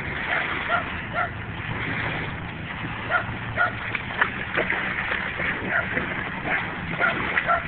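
Dogs barking in short, yappy calls, coming in little runs of two or three about half a second apart, over a steady low hum.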